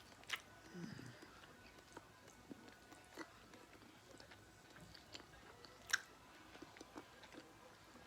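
A person chewing a mouthful of rib meat, with quiet wet clicks and smacks of the mouth and a sharper click about six seconds in.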